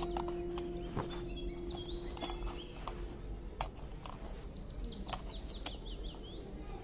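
Birds chirping in the background, with a quick run of chirps near the end. Sharp little clicks and taps of a tiny metal strainer being handled. A held musical note fades out in the first few seconds.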